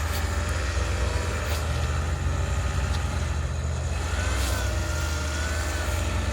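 Off-road jeep engine running steadily under way, a deep, even low rumble.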